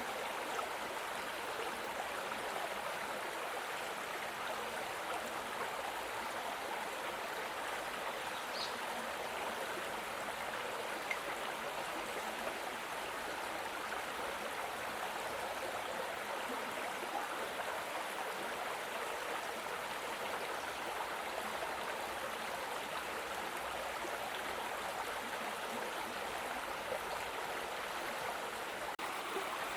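Mountain stream water flowing and splashing over rocks, a steady rushing.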